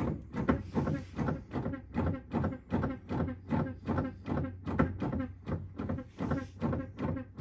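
Brake pedal being pumped repeatedly to push fluid and air out during a brake bleed, making a quick, even run of creaking clicks about three a second.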